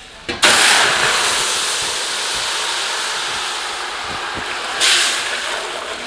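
Meat stock poured into a large aluminium pot of hot oil and melted sugar, hitting the hot fat with a sudden loud sizzling hiss about half a second in that slowly dies down, then flares up again near the end as more stock goes in.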